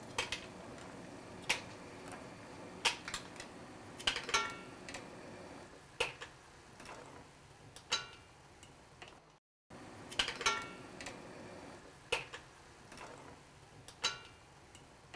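Mussel shells clinking against a metal pan and utensil as the opened mussels are picked out one at a time: sharp clicks with a short ring about every one to two seconds, over a faint steady hiss. The sound cuts out briefly just past the middle.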